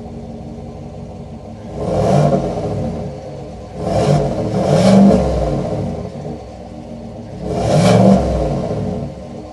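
The 6.2-litre V8 of a 2024 GMC Sierra Denali Ultimate idles through its active exhaust and is revved in three bursts, the middle one longest, each rising and falling back to idle. It is heard from behind, at the dual exhaust outlets.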